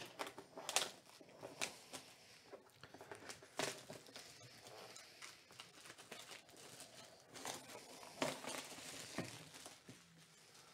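A large cardboard box being handled and shifted on a tabletop: scattered knocks, scrapes and soft rustles.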